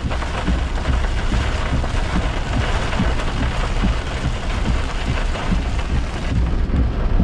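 Heavy rain pelting the roof and windshield of a moving car, heard from inside the cabin as a dense, steady hiss over the car's low rumble on the wet road.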